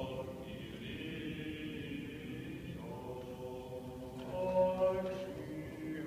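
Byzantine chant of a Greek Orthodox service: voices singing long held notes that shift in pitch every second or two.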